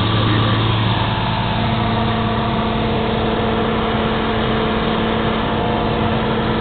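A light airplane's engine and propeller droning steadily, heard inside the cabin in flight, over a constant rushing hiss.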